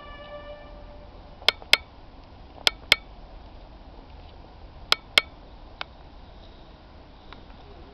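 A held musical note ends about a second in. Then come three pairs of sharp, lightly ringing clicks, the two clicks of each pair about a quarter of a second apart, followed by a single fainter click.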